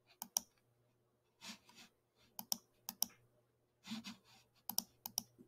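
Computer mouse clicks: a series of short, sharp clicks at irregular intervals, several of them in quick pairs.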